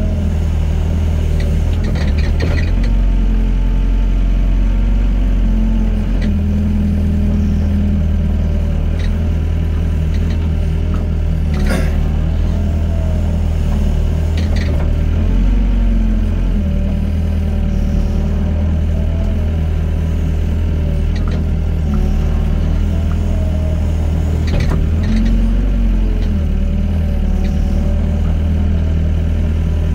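Doosan excavator's diesel engine running steadily, its note swelling and easing every few seconds as the machine works. A few sharp knocks cut through, the loudest about twelve seconds in.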